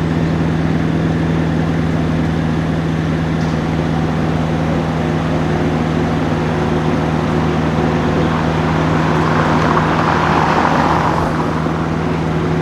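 Car engine idling steadily with an even low hum. A louder swell of noise rises and fades about nine to eleven seconds in.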